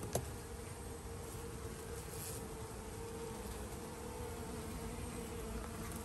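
Steady buzzing hum of a honey bee swarm clustered in a cardboard box, with one sharp click just after the start.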